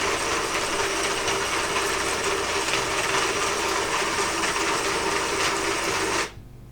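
Robot arm turret's motor and harmonic gear drive running steadily as the turret rotates, a steady whirr with a mid-pitched hum, which cuts off suddenly near the end when the turret stops.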